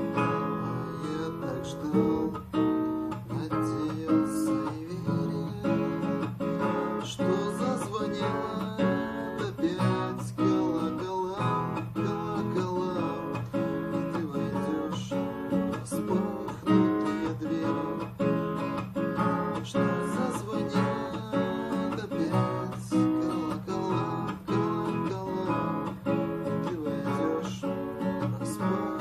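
Acoustic guitar played in an imitation of church bell ringing: a busy, rhythmic run of repeated plucked and strummed notes that keeps going at an even level.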